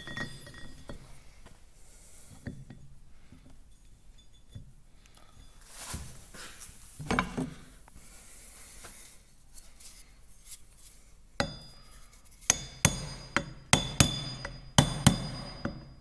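Faint handling of metal parts, then from about eleven seconds in a run of sharp hammer taps on metal, about two a second, each with a brief metallic ring: a self-aligning double-row ball bearing being tapped into its housing.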